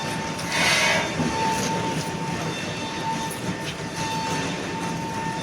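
Steady machinery noise with a constant high whine, and a louder hissing surge about a second in.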